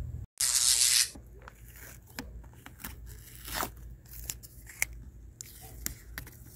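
Masking tape being peeled off the glass and rim of a truck's side-view mirror: a loud tearing hiss of under a second near the start, then quieter picking and scraping at the tape with small clicks.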